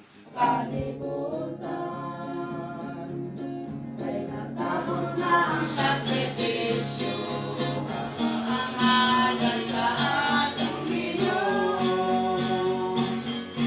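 Background music: a song with a singing voice over plucked guitar, starting about half a second in.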